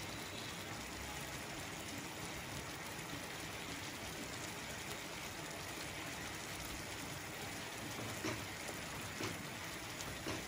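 Thick yogurt and gram-flour curry simmering in a kadai: a steady soft hiss and patter of bubbling, at the stage where the oil has separated and risen through the mixture. A couple of faint clicks near the end.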